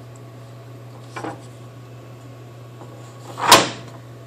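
Two brief rubbing scrapes over a steady low hum: a faint one about a second in and a louder one about three and a half seconds in.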